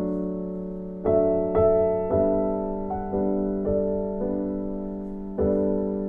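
Gentle background piano music: a slow melody of single notes, each struck and left to fade, over a steady low note.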